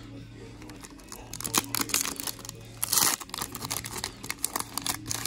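A trading card booster pack's wrapper crinkling and being torn open, with a short rip about three seconds in, among quick clicks of cards being handled.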